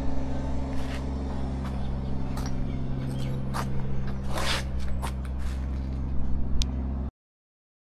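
A steady low machine hum with several fixed pitches, with scattered footsteps and light scrapes on concrete over it. The sound cuts off abruptly about seven seconds in.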